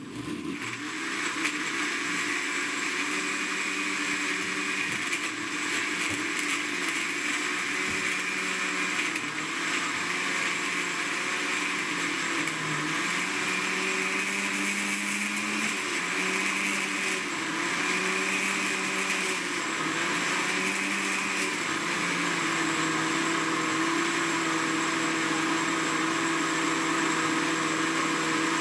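Countertop blender with a glass jug switching on and running at speed, pureeing whole peeled garlic cloves with liquid. The motor pitch wavers as the cloves are chopped, then holds steady for the last several seconds as the mixture turns smooth.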